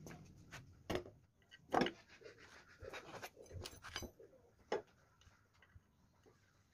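A handful of knocks and clicks as a go-kart wheel is handled and pushed onto its axle, louder ones about a second in, near two seconds, near four and just before five seconds. Light handling noise runs in between, and it goes quiet for the last couple of seconds.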